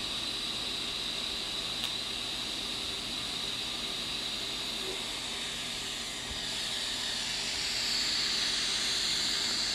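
Pulsed TIG welding arc giving a steady hiss, with the pulse time set to 55%. It grows a little louder in the second half.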